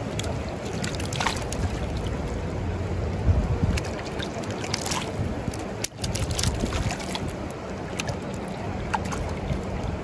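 A swollen creek rushing steadily, with scattered sharp clicks and splashes over it and wind buffeting the microphone.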